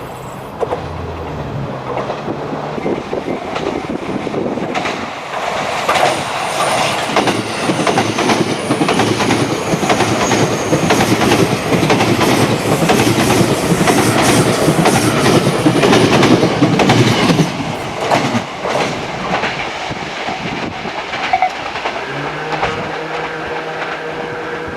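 Electric train passing close by, its wheels clacking over the rail joints. The noise builds to its loudest in the middle, with a thin high whine above it, then eases off.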